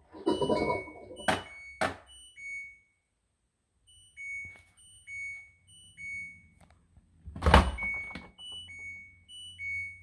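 An LG front-loading washing machine's electronic buzzer plays a short tune of clear beeps at two or three pitches. Sharp knocks come with the first beeps, and one loud thunk lands a little past the middle. A low rumble dies away in the first second.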